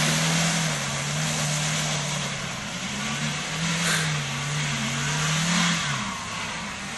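4x4's engine revving hard under load while backing up off-road, held high in two long pushes with a short dip between, then easing off near the end.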